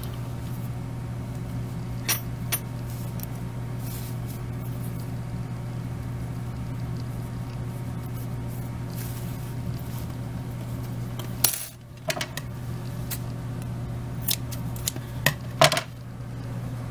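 Light metallic clicks and taps from a steel yarn needle and aluminium crochet hook being handled and laid down on a table: a couple about two seconds in and a quick cluster near the end, over a steady low hum.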